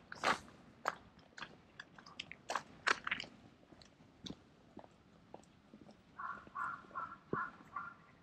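Footsteps crunching on gravel, a step about every half second, fading off after three or four seconds. Near the end comes a short run of quick pulsed tones at two pitches.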